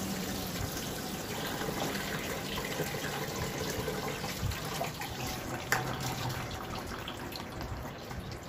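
Water trickling and splashing in a steel kitchen sink as soaked wheat grains are tipped from a plastic tub into a steel bowl. A few light knocks, the sharpest about six seconds in.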